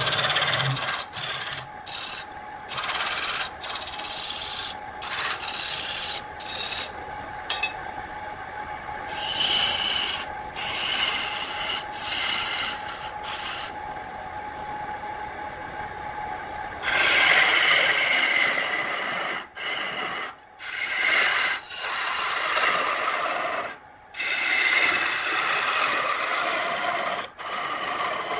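A hand-held turning tool cutting into wood spinning on a lathe, a rasping shaving hiss in repeated passes that come and go over the faint steady hum of the lathe motor. The passes grow longer and louder about two thirds of the way through.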